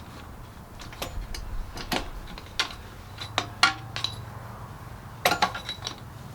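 Scattered sharp metal clinks and taps from a small pry bar working the pressure-washer pump loose from the engine shaft, with a quick cluster of taps about five seconds in.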